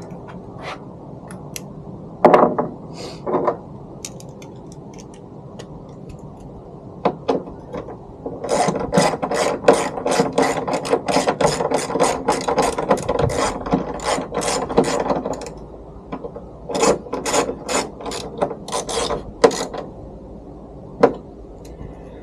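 Hand ratchet wrench clicking in runs as a fastener on the tailgate's brake light assembly is tightened down: two short bursts early, a long fast run of clicks in the middle, and another run a few seconds later.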